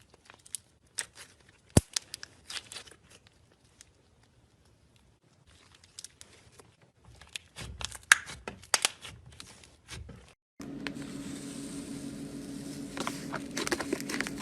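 Slime being squished and pulled by hand: scattered sticky clicks, pops and crackles, sparse at first and denser in the second half. About ten seconds in, a steady low hum starts suddenly under further clicks.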